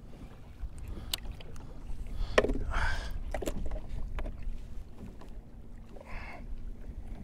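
Wind and water against a fishing kayak on open sea, a steady low rumble, with a few sharp clicks and short rustles of handling, the loudest about two and a half seconds in.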